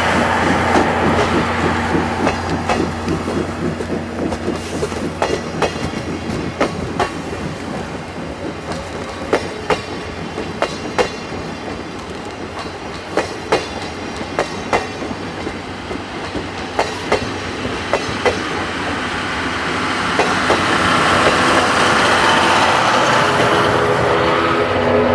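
Passenger coaches of a steam-hauled train rolling past, with a steady rushing noise and repeated clicks as the wheels pass over rail joints.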